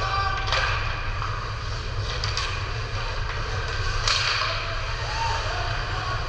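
Game ambience: a steady low rumble with three sharp cracks, about half a second, two and a half and four seconds in, the last the loudest, and faint distant voices.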